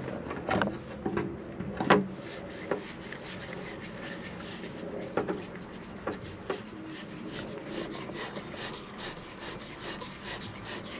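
A few wooden knocks, then fast, continuous rubbing and scraping of wood on wood as a beech-dowel support leg with a threaded rod is screwed by hand into the underside of a wooden bed platform.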